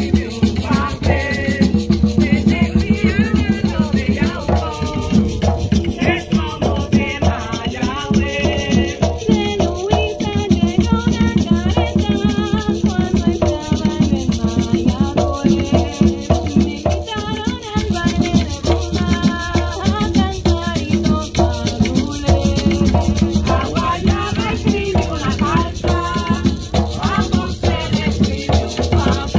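Live Puerto Rican bomba music: hand-played barrel drums (barriles) keep a dense, fast rhythm under a shaker, with several singers singing into microphones.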